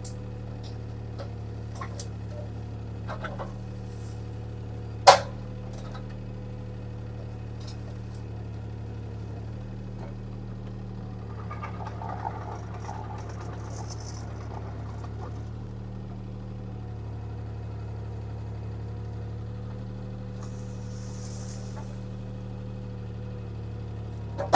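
A work machine's diesel engine running at a steady, even drone, heard from the operator's seat, with a few sharp knocks; the loudest knock comes about five seconds in.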